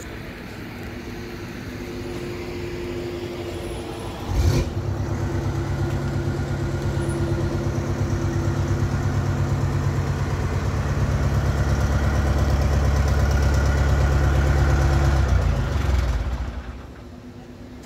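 A heavy vehicle engine starts up suddenly about four and a half seconds in and runs steadily, growing louder, then cuts off abruptly near the end.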